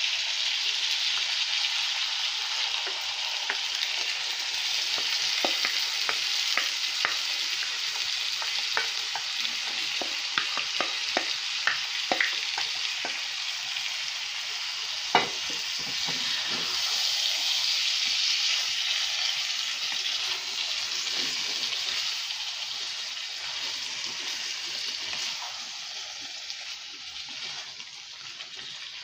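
Tomato sauce sizzling in a frying pan of stir-fried peppers and onions as a wooden spatula stirs it, a steady hiss with scattered sharp clicks and one louder click about halfway. The sizzle eases off near the end.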